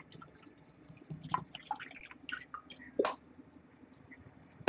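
Water poured from a plastic glue bottle into a glass dish of clear glue: faint, irregular trickling and dripping, with a sharper tap about three seconds in.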